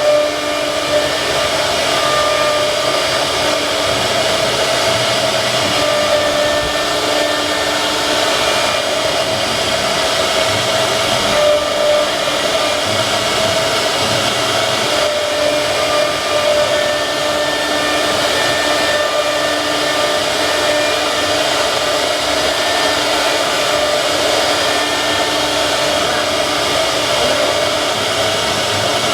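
Wood CNC router running steadily, its spindle and cutting noise making an even, loud rush, with faint steady tones that start and stop every few seconds.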